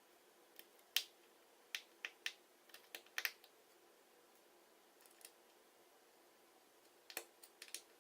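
Light, sharp clicks and taps of small tools on the tiny screws and thin metal shield inside an iPhone 5, coming in a cluster over the first few seconds, one alone in the middle, and another cluster near the end.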